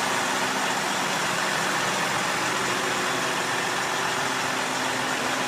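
Heavy tanker truck's engine running steadily, an even, unbroken mechanical noise with a broad hiss.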